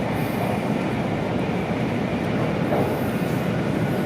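Steady running noise inside the passenger cabin of an E2 series Shinkansen travelling at speed: an even rushing rumble with no breaks or separate events.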